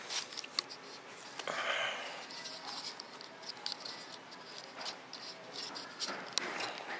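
Scattered small clicks and rustling handling sounds in a room, with a longer rustle about one and a half seconds in and another near the end.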